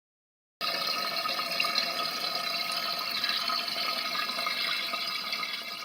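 Newly installed toilet fill valve refilling the tank: a steady hiss of rushing water with a faint whistling tone in it. It starts abruptly about half a second in and eases slightly near the end.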